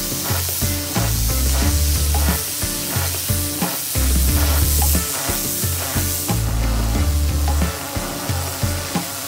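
Steady hiss of a pressure washer's spray under background music with a bass line and a steady beat; the hiss drops off about six seconds in.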